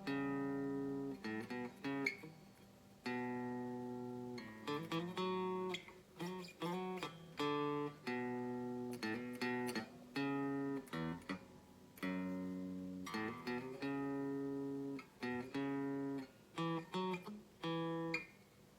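Guitar playing chords in a repeating pattern: a long ringing chord about every three seconds, with short, quickly damped chord stabs between them.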